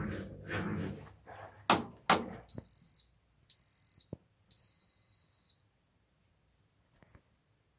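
Front-loading washing machine ending its cycle: the drum's rhythmic rumble dies away in the first second, two sharp clicks follow, then three high beeps at one pitch, the last one longer, signal that the wash is finished.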